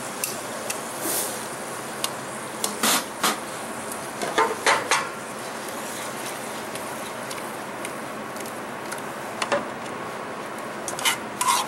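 Scattered short clinks and taps of kitchen utensils and dishes while food is plated, over a steady background hum. The taps come in a cluster over the first five seconds and again near the end.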